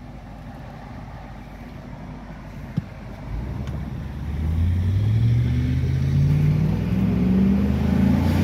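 Chevrolet Tahoe's 4.8-litre V8 accelerating away from a stop, heard from inside the cab: a quiet low hum at first, then from about four seconds in a louder engine note that rises steadily in pitch as the rebuilt 4L60E automatic pulls the truck up to speed. A single sharp click sounds about three seconds in.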